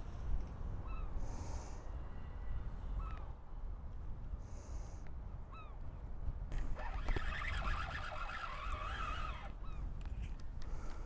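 Birds calling: short, falling calls a few times, then a stretch of several overlapping calls in the middle, over a steady rumble of wind on the microphone.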